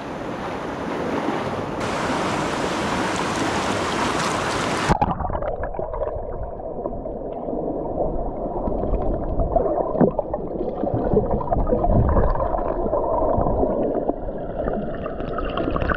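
River water rushing and splashing at the surface. About five seconds in, the sound suddenly turns muffled, and it goes on as a dull underwater rumble and gurgling with scattered knocks, as heard under the river water.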